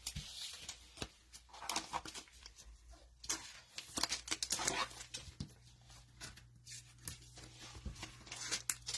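Trading-card cello packs being handled: plastic wrapper crinkling and tearing and cards being shuffled, heard as irregular short rustles and clicks over a faint steady hum.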